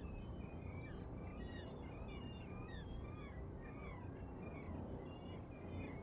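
Many birds calling at once: short, overlapping yelps and chirps over a steady low rumble.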